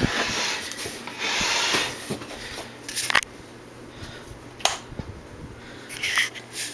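Handling noises: rustling and rubbing in the first two seconds, then three sharp clicks spaced about a second and a half apart, over a faint steady low hum.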